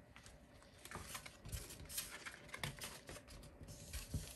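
Hands handling and pressing down a sheet of paper over glued satin ribbon handles: faint, scattered taps and paper rustles.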